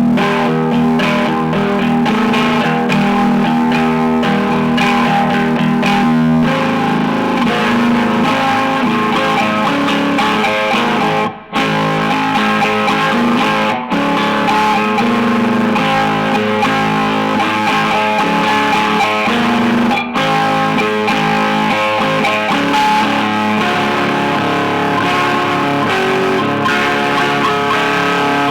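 Electric guitar played continuously, a flowing run of notes and chords, cut by three brief drops in the sound, the first about eleven seconds in.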